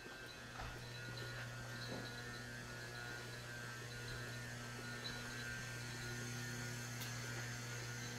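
Shinano Railway SR1 series electric train giving a steady low electrical hum from its onboard equipment, with a faint high whine above it. The hum grows louder about half a second in and then holds steady.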